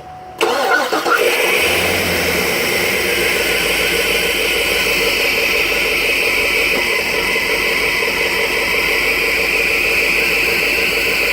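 Cadillac 6.2 L V8 starting about half a second in and then running steadily with a strong hiss and an even rapid pulse. The engine misfires on cylinder 7, which the mechanic traces to a failed AFM lifter that stops that cylinder's valves moving once the engine runs.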